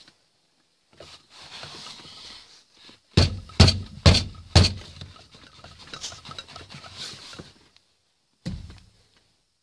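A burst of four sharp knocks in quick succession about three seconds in, and one more knock near the end, over rustling handling noise.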